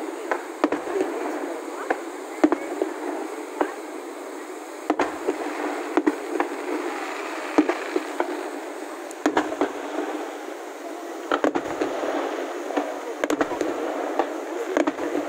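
Aerial fireworks shells bursting in sharp bangs at irregular intervals, coming in quicker volleys about nine seconds in and again near the end, over a steady rushing background.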